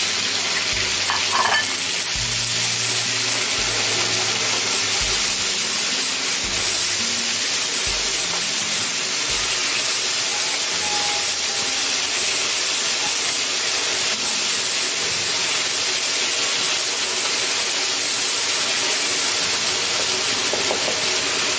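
Green chili peppers and sliced pork sizzling in a hot wok, stirred and tossed with a wooden spatula: a steady frying hiss.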